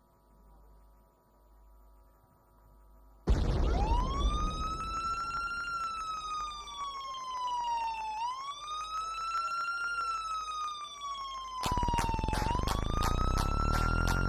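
A siren wail begins about three seconds in, rising and falling in slow sweeps about every four seconds; it is played as the opening of the runway music track. About twelve seconds in, a pounding beat with a deep bass pulse comes in under the siren.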